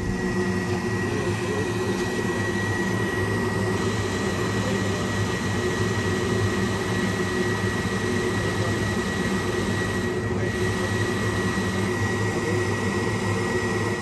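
Carlin burner firing a Weil-McLain steam boiler: a steady blower roar with a constant high whine over a low hum.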